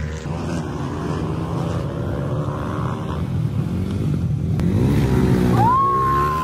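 Supermoto motorcycle engines running, their pitch rising and falling as the riders rev, with a clear climb in pitch about five seconds in. Near the end a single high steady tone sounds over them for about a second.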